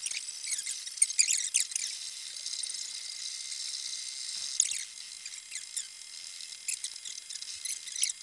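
MakerBot Replicator 2 3D printer printing: its stepper motors give quick high-pitched chirps and whines as the extruder head moves back and forth, over a steady high hum.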